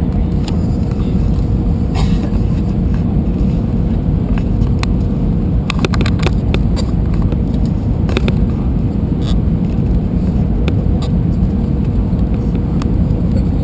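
Steady low rumble inside an Airbus A320-200 cabin on final approach, from the engines and the airflow, with scattered light clicks and rattles and a faint steady hum.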